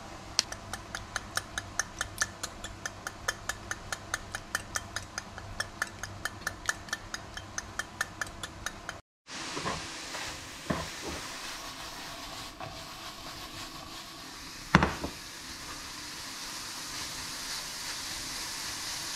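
A hand spice mill twisted repeatedly, clicking about five times a second for some nine seconds. After a brief break, sliced mushrooms sizzle in a frying pan while a spatula stirs them, with a sharp knock about fifteen seconds in.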